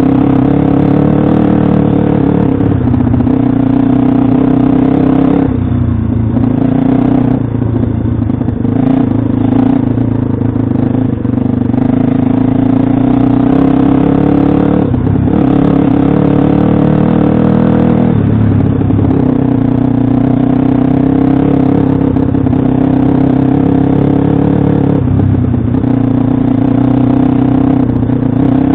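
Pit bike's single-cylinder engine running hard at steady high revs, with brief drops in revs a few times as the throttle is eased off or a gear is changed.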